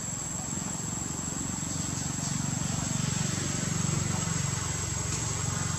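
Outdoor ambience: a steady low rumble that grows a little louder in the middle, under a continuous high insect buzz.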